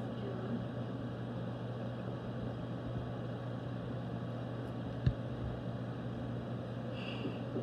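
Room tone: a steady low mechanical hum, with one short knock about five seconds in.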